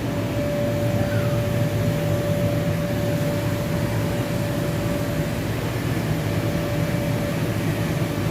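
Steady drone of the electric blower fans that keep the inflatable slides up, a constant low rumble with a steady hum over it.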